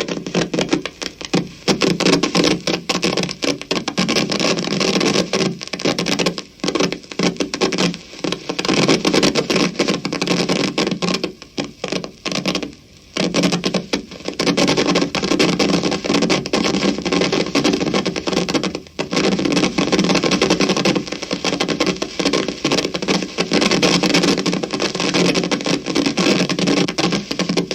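Amplifier crackling: dense, irregular crackle and static through the speaker, cutting out briefly now and then.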